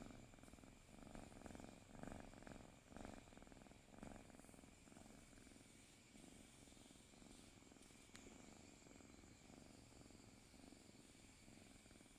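Sleeping domestic cat purring faintly, a soft rumble that swells with each breath about once a second, a little stronger in the first few seconds.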